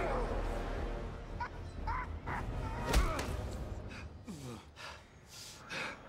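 Fight sounds: a heavy blow at the start and another about three seconds in, amid short pained grunts and a falling groan from a beaten man.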